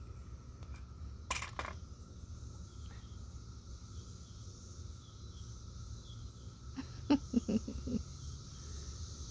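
A plastic grooming brush set down on a concrete porch floor with a short clatter about a second in, over a steady insect drone. A few short soft knocks follow near the end.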